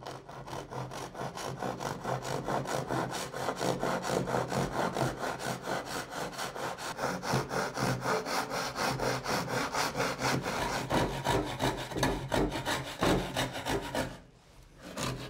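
Japanese pull saw cutting through a scrap pine board by hand, in quick, even back-and-forth strokes that stop near the end.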